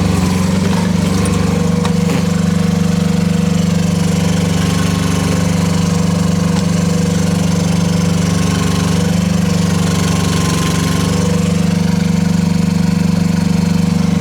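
The water-cooled Kubota diesel engine of a Rippa R10 1-ton mini excavator running at a steady speed.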